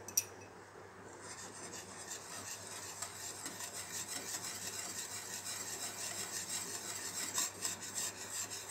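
A wire whisk scraping and swishing fast and continuously around a steel saucepan, mixing dry milk powder into hot chocolate sauce. It opens with a light clink of the whisk on the pan, and the steady whisking starts about a second in.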